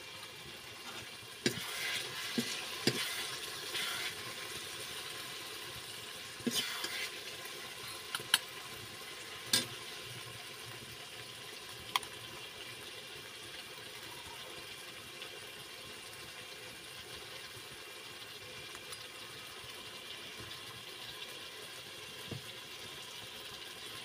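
A metal spoon clinking and scraping against a steel bowl, half a dozen sharp clinks in the first half, over a steady sizzle from a wok heating on a wood fire.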